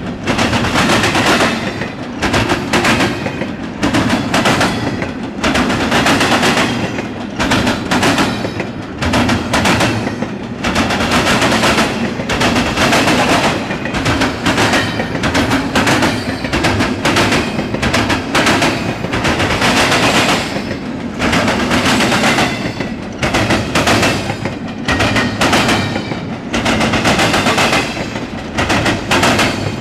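Intermodal freight train cars rolling past close by: a continuous loud rumble with rapid, irregular clattering of steel wheels on the rails.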